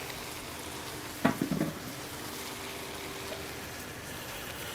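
Diced onions frying in coconut oil in a pan, a steady sizzle, with a brief louder thump about a second and a half in.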